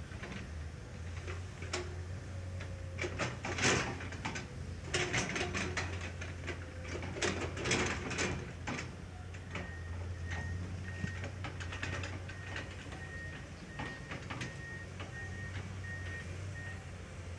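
Construction-site machinery running with a steady low hum, with irregular metal clanks and knocks, then an electronic beeping alarm sounding about twice a second through the second half.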